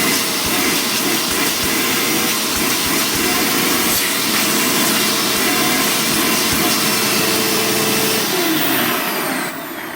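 A 2005 Dirt Devil Breeze bagged upright vacuum cleaner runs during a hose suction test: a steady motor whine over a loud rush of air. About eight seconds in it is switched off, and the motor's pitch falls as it winds down.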